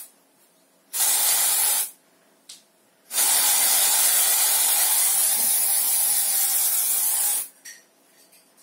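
Aerosol can of Batiste dry shampoo spraying into hair: a hiss of about a second starting about a second in, a brief puff, then one long spray of about four seconds.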